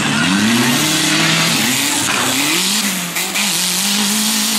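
Off-road race engines revving hard as the vehicles drive through mud, the pitch rising and falling again and again, then one engine held at steady high revs from about three seconds in.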